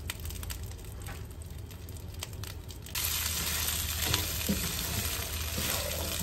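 Akabare chillies frying in mustard oil in a wok, sizzling while a wooden spatula stirs and knocks against the pan. The sizzle turns suddenly louder about halfway through.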